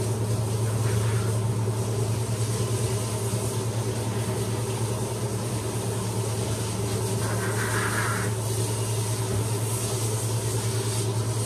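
Power bathing system's pump running with a steady hum, while water and shampoo spray from its hose nozzle onto a dog's coat with a hiss.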